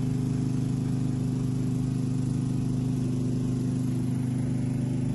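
A motor running steadily, a low, even hum that does not change in pitch or level.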